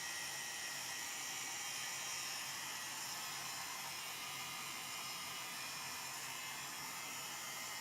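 Heat gun blowing steadily on a low heat setting, a constant airy hiss, as it shrinks shrink-wrap film down around the bundled items.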